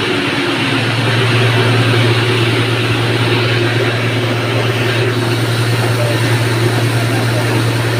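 Electric flour mill (atta chakki) running, a loud, steady hum with an even rushing noise over it.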